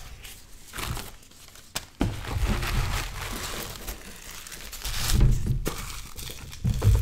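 Unpacking a cardboard shipping box: crinkling and rustling of packing material and bubble wrap, with a few dull thumps as the box and package are moved.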